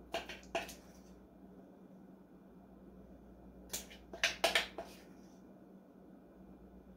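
Spoon scraping and clinking against the inside of a glass measuring cup as sticky filling is scraped out. Two short clinks near the start, then a quick cluster of about five about four seconds in.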